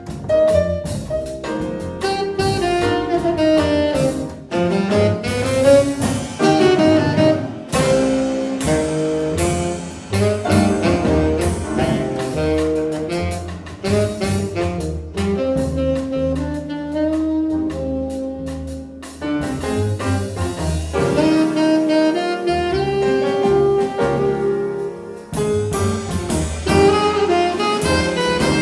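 Live jazz quartet playing: saxophone leading the melody over piano, upright double bass and drum kit with cymbals.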